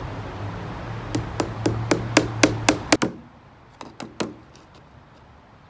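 Small claw hammer tapping a nail through a terry-cloth slipper into a styrofoam block: a quick run of about eight sharp taps, about four a second, then after a short pause three lighter taps. A low steady hum sits under the first run and stops about three seconds in.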